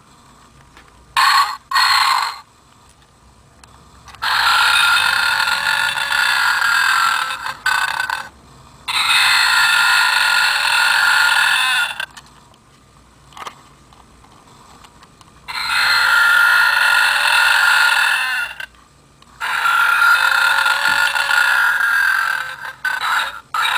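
Burping keychain playing recorded burp sounds through its tiny speaker. There are four long burps of three to four seconds each, with short ones about a second in and again near the end. The sound is thin and tinny, with no low end.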